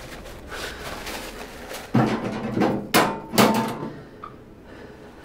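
Paper towel rubbing over a face, then four heavy thuds in quick succession starting about two seconds in, with a slight ringing after them.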